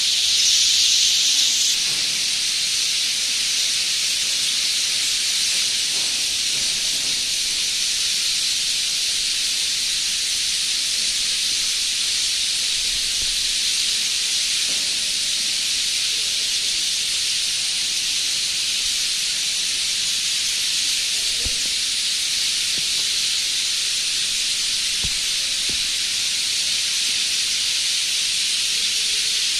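Dense chorus of many birds chirping at once, blending into a steady high hiss, a little louder in the first two seconds.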